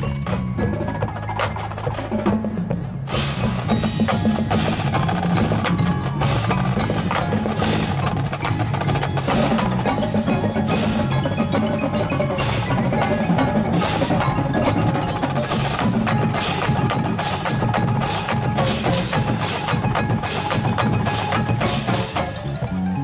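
Marching band playing, with strong low brass notes and mallet and drum percussion; from about three seconds in, sharp percussion hits land on a steady beat.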